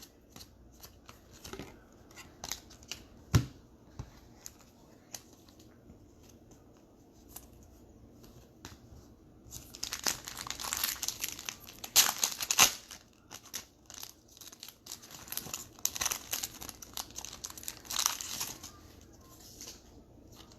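Scattered light clicks of cards being handled, then from about ten seconds in the foil wrapper of a trading-card pack crinkling and tearing as it is opened.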